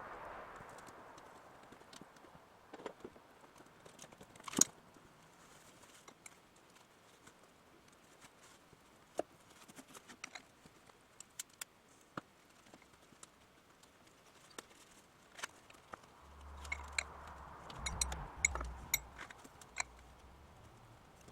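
Scattered light clicks and knocks of hand tools and metal parts being handled, with one sharper knock about four and a half seconds in. Near the end, a low rumble and a rush of noise come in for a few seconds among more clicks.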